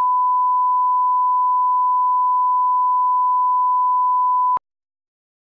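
Steady electronic line-up test tone, one pure unchanging pitch, of the kind set at the head of a broadcast tape as a level reference. It cuts off suddenly about four and a half seconds in, leaving silence.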